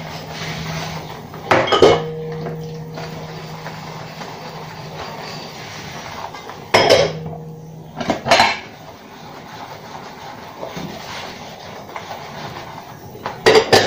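Bowls and plates clattering and clinking as they are hand-washed and handled at a stainless steel sink, with sharp knocks about one and a half seconds in, twice around seven to eight seconds, and again near the end.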